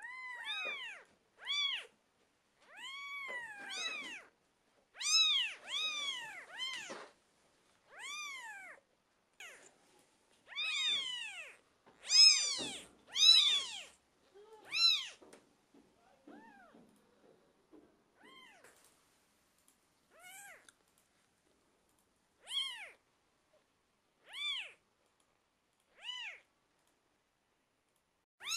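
Twelve-day-old British Shorthair kittens mewing: a long run of high, thin calls, each rising then falling in pitch, often in quick succession and sometimes overlapping. The calls thin out for a few seconds past the middle.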